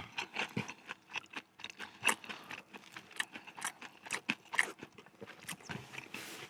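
A person chewing a crispy fried chicken burger, with many short, irregular crunches.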